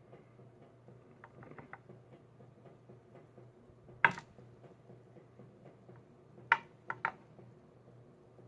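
Small metal lock parts and tools being handled: a few faint ticks, then a sharp click about four seconds in and three more clicks a couple of seconds later.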